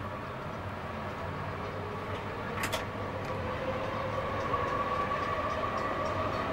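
Calgary C-Train light rail car running along the track, heard from on board: a steady rumble with a whine that grows louder as it goes, and a single sharp click about two and a half seconds in.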